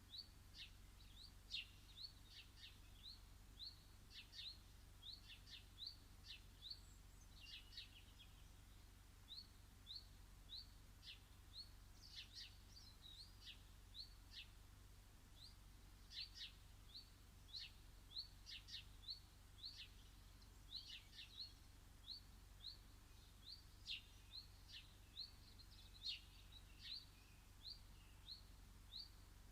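Garden birds calling: a faint run of short, high, rising chirps at about two a second, mixed with sharper calls from other birds.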